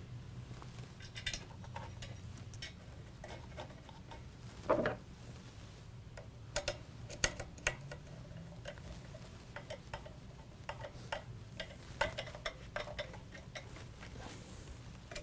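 Irregular small metallic clicks and ticks of hex screws and a screwdriver working in the holes of a fan's metal stator and motor hub, over a low steady hum.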